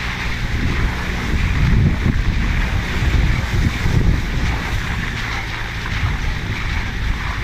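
Off-road 4x4 engine running at low revs, with wind rumbling on the microphone.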